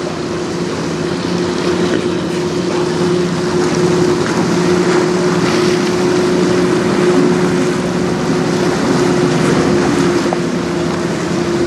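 A sailboat's auxiliary engine running steadily as the boat motors with its sails furled: a constant low hum over the rush of wind and choppy water.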